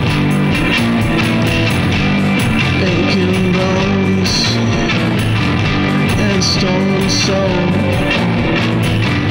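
Punk rock band playing live: a Telecaster-style electric guitar and a bass guitar, joined by a man singing into a studio microphone from about three seconds in.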